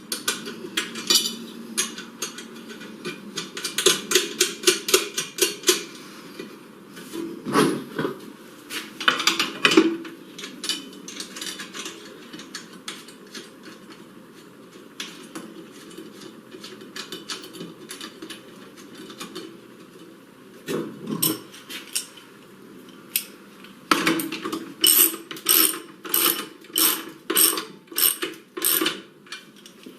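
Ratchet wrench clicking in bursts as it tightens a battery hold-down bracket onto its anchor bolts, with metal clinks and knocks in between. There is a quieter stretch in the middle, and a loud, even run of ratcheting near the end.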